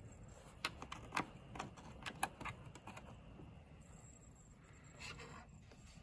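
A handful of light clicks and taps in the first two and a half seconds, as a USB plug is handled and pushed into a port on a laptop docking station; then faint room tone.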